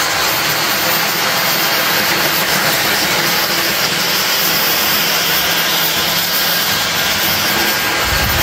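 Dyson V15 cordless stick vacuum cleaner running steadily at full power in boost mode: a loud, even rush of air with a thin high tone over it. There is a brief low rumble near the end.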